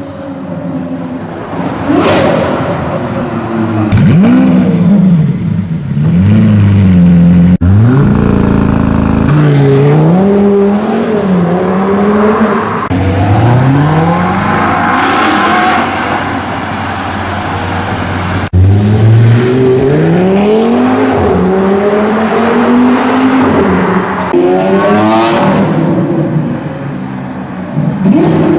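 High-performance sports car engines revving hard and accelerating, the pitch rising through each gear and dropping at the shifts, in several short clips cut one after another. Near the end comes a quick string of short rising revs.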